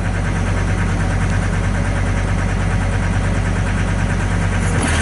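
Diesel engine of a 2006 John Deere 325 skid steer idling steadily, with a short hiss near the end.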